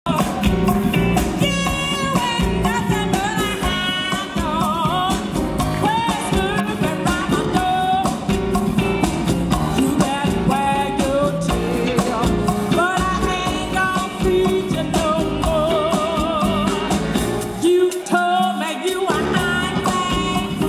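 Cha-cha-cha dance music with a singer over a steady beat. Near the end the bass drops out for about a second, then comes back.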